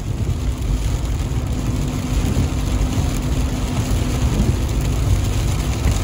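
Steady road and engine noise inside a moving car: a constant low rumble of tyres on the road with a faint engine hum underneath.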